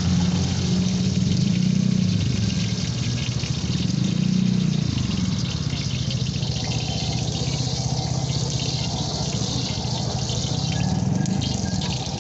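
Hot cooking oil sizzling in a wok over a steady low burner rumble. In the second half, two eggs are tipped from a ladle into the hot oil.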